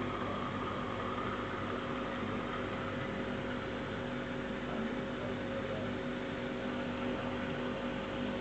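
Steady aquarium pump hum with a constant hiss underneath, unchanging throughout.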